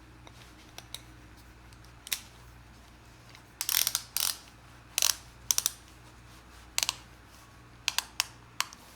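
Ratchet belt buckle clicking as the belt's toothed track is worked through the pawl, in sharp irregular clicks, singly and in short quick groups.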